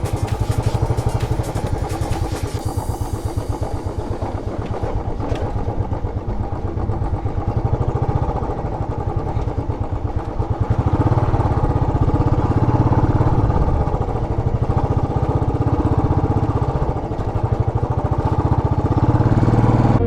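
Royal Enfield Classic 500's single-cylinder engine running under way, a fast, even beat of exhaust pulses, getting louder about halfway through.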